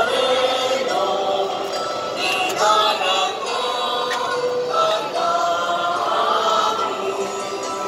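A large crowd singing a hymn together in long held notes, many voices blended into one sound.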